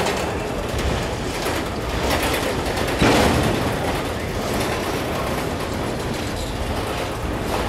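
Freight train of autorack cars rolling past, with steady rumble and rattle from the wheels on the rails and a few knocks. One loud bang about three seconds in.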